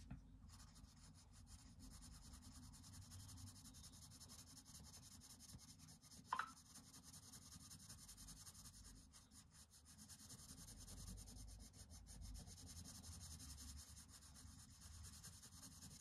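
Faint, steady scratching of a Faber-Castell Polychromos oil-based coloured pencil shading lightly on colouring-book paper, with one brief louder sound about six seconds in.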